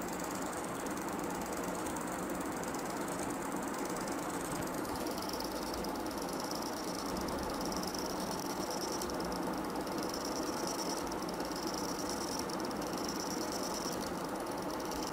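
E-Xtreme cordless endodontic motor driving a reciprocating file in reciprocating mode (150°/30°), cutting gutta-percha out of a compacted root canal: a steady small-motor whir, with a higher whine that comes and goes from about five seconds in.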